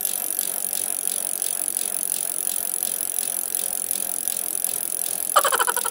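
Rapid, even ratchet-like clicking over a steady hiss, with a brief, rapidly pulsing ring near the end.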